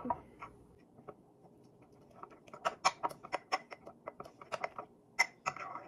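Metal spoon stirring cream in a glass mason jar, clinking and tapping quickly against the glass. The taps come thickest from about two seconds in, with one sharper clink near the end.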